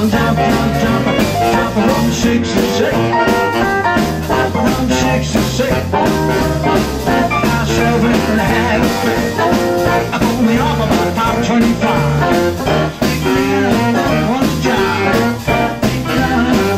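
Live band playing up-tempo garage swing: electric guitar, saxophone, upright bass and drums.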